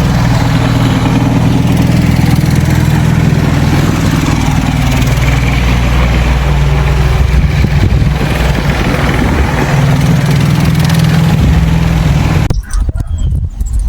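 A motor vehicle engine running steadily with small shifts in pitch and a broad hiss over it, cutting off abruptly near the end.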